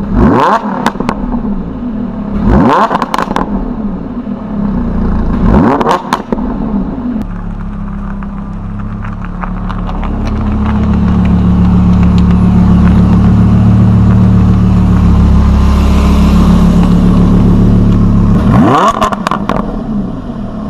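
Lamborghini Huracán's V10 exhaust revved three times, each a sharp rising blip about three seconds apart. It then runs steadily, louder for several seconds as the car rolls over and away, with one more quick rev near the end.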